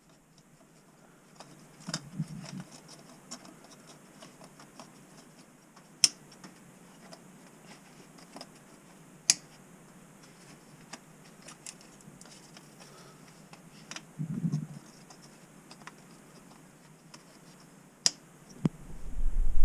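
Light clicks and taps of hand tools working on the intake manifold bolts of a V6 engine, with three sharper single clicks a few seconds apart and two short scraping rustles. A low rumble rises at the very end.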